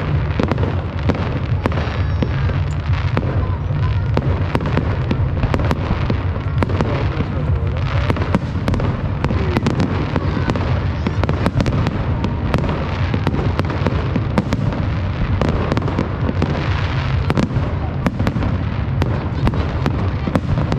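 Fireworks display going off: a dense, unbroken run of bangs and crackles, with people's voices underneath.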